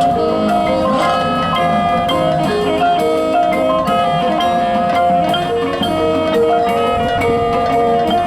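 A high school drumline's front ensemble of mallet keyboard percussion plays a quick melodic passage of struck, ringing notes.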